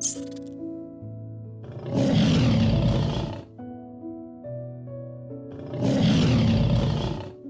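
Two long animal roars, each lasting about two seconds and a few seconds apart, over steady background music.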